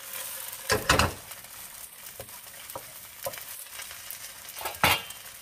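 Bánh xèo frying in a hot pan with a steady sizzle, broken by a few sharp knocks; the loudest come about a second in and near the end.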